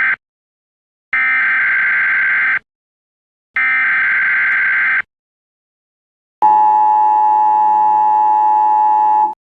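Electronic beep tones laid in as a sound effect: two long, high, steady beeps about a second apart, then a lower steady tone held for about three seconds that cuts off suddenly.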